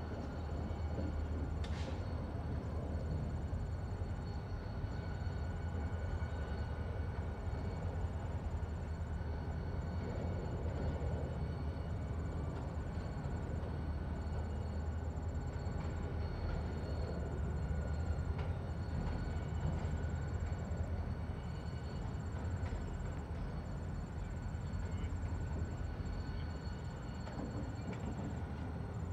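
Diesel locomotive hauling a train across a railroad bridge, a steady low rumble. A high insect trill repeats in regular pulses over it.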